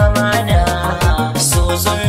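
Hausa pop song in an instrumental stretch without vocals: a steady beat with a deep thump about twice a second under melody lines.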